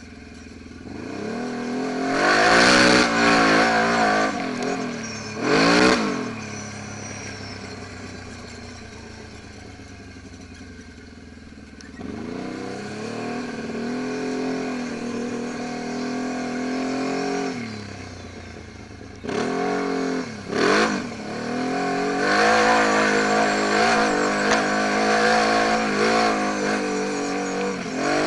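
Quad bike (ATV) engine revving up and easing off as it is ridden: it climbs sharply about two seconds in, blips again near six seconds, drops to a low, quieter run for several seconds, climbs again, and near the end holds at a higher, steady run.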